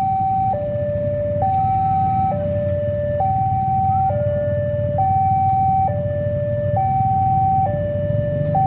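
New electronic warning siren of a railway level crossing sounding its hi-lo alarm, switching steadily between a higher and a lower tone about once a second, the signal that a train is approaching and the barriers are down or closing.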